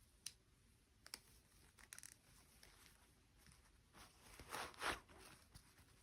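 Toy packaging being handled and opened: a few light clicks, then two short tearing, rustling sounds near the end.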